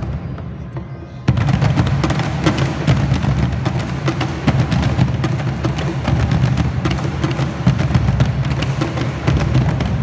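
An ensemble of Peruvian cajones played together, with a dense, fast run of slaps and deep bass hits. The playing comes in louder and fuller just over a second in, after a softer stretch.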